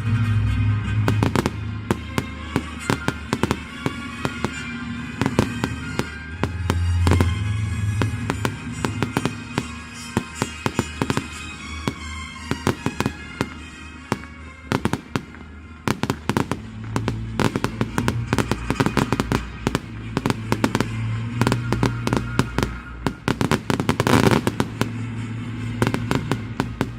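Fireworks going off in a rapid run of sharp bangs and crackles, thickest in the second half, with one big, long burst a few seconds before the end. Music with a steady bass plays underneath.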